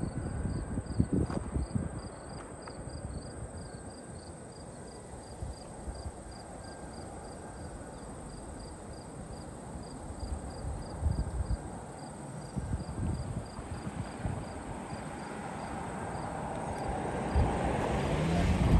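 Crickets chirping in an even rhythm of about two chirps a second, over gusts of wind rumbling on the microphone. Near the end a broad rushing noise swells louder.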